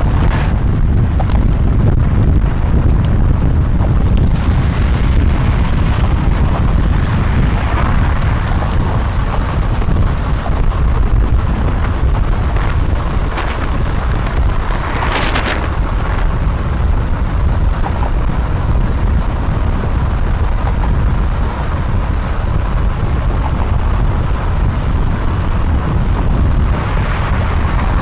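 Steady wind buffeting the microphone over the low rumble of a car driving at road speed, with one louder whoosh about fifteen seconds in.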